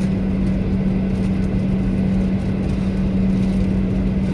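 Airliner cabin noise before takeoff: a steady rumble with a constant low hum.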